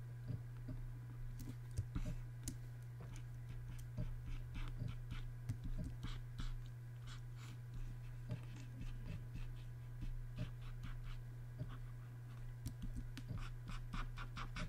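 Irregular short scratches and taps of a pen stylus working a drawing tablet during brush strokes, over a steady low electrical hum.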